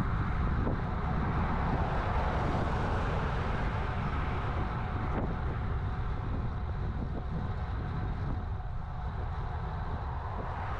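Steady wind rush on a bike-mounted action camera's microphone, mixed with bicycle tyres rolling on asphalt while riding. The rush slowly eases.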